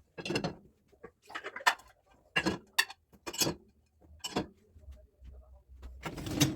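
A series of irregular light knocks, clicks and clatters from things being handled, about a dozen in six seconds, with a low rumble under the later ones.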